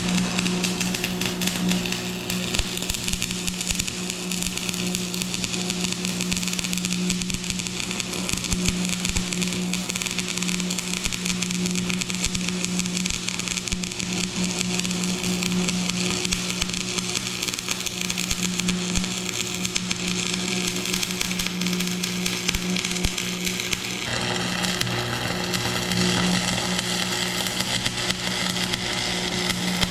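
Stick-welding arc crackling and hissing without a break, over the steady hum of an engine running; the crackle grows brighter about 24 seconds in.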